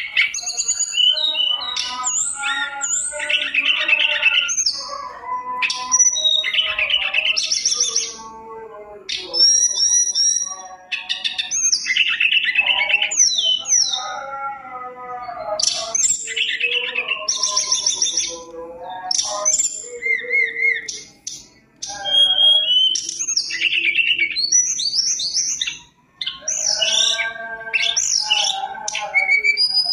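Tledekan gunung (hill blue flycatcher) singing a long, loud run of varied whistles, trills and rapid chattering phrases, broken only by brief pauses. The song is packed with mimicked 'isian' phrases, as in a bird in full song.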